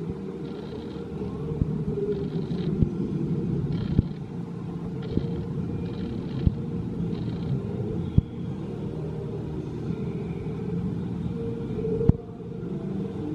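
Wave Breaker's Intamin launched coaster train rumbling along its steel track over the lake, with several sharp clacks along the way.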